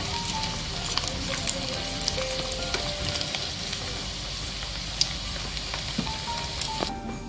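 Breaded oyster-mushroom nuggets deep-frying in hot oil, a steady crackling sizzle with scattered sharp clicks as metal tongs turn them in the wok. The sizzle cuts off abruptly shortly before the end, leaving faint background music.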